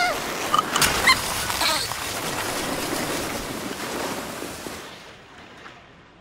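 A tortoise shell sliding fast down a snowy ski-jump in-run: a steady rushing whoosh of shell over snow, with a few short squeaky chirps in the first second or so, fading out about five seconds in.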